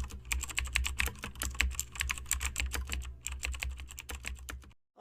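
Rapid, irregular clicking like keyboard typing, several clicks a second over a low hum, cutting off suddenly near the end.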